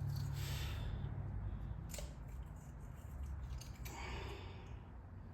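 Light handling noises of metal axle parts: a sharp click about two seconds in and a couple of brief scrapes, over a low steady hum.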